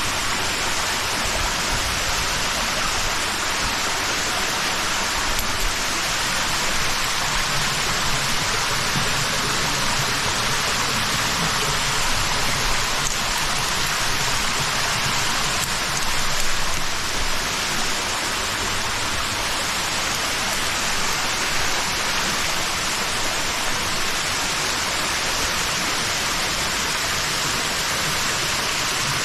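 Steady rushing of a mountain stream's water cascading over rocks.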